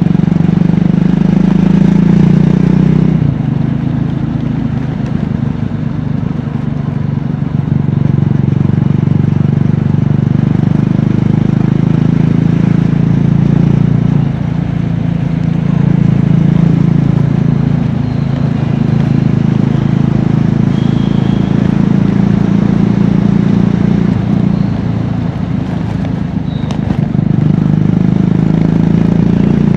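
Triumph Scrambler 400X's single-cylinder engine and exhaust heard from the bike while riding. The exhaust note rises and falls with the throttle: it eases off about three seconds in, dips briefly around the middle and again near the end, then pulls strongly again.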